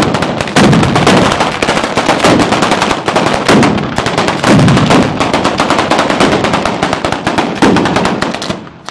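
Ground-level firecracker battery (Italian 'batteria') going off at close range: a rapid, unbroken string of loud bangs that dies away near the end.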